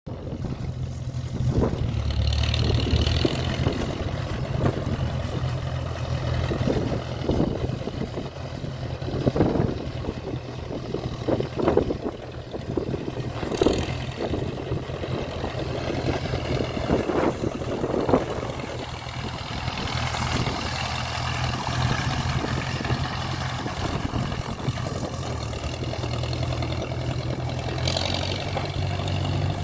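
International tractor engine running steadily as the tractor is driven slowly around, with occasional short knocks.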